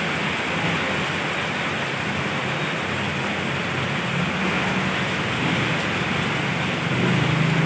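Steady heavy rain falling, a continuous even hiss. Near the end a vehicle's low engine hum grows louder as it approaches.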